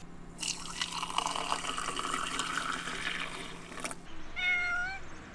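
Liquid being poured into a container, a steady pour lasting about three and a half seconds, followed by a single short cat meow.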